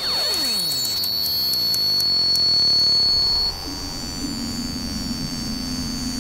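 Film sound design: a sudden, loud, high-pitched ringing tone, with a falling sweep beneath it in the first couple of seconds. About three and a half seconds in it drops away to a low, steady drone, and the high ringing carries on faintly.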